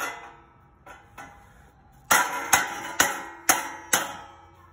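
Hammer striking galvanized steel drip edge flashing to fold a notched tab flat over the hemmed edge: two light taps about a second in, then five hard blows about two a second, each with a short metallic ring.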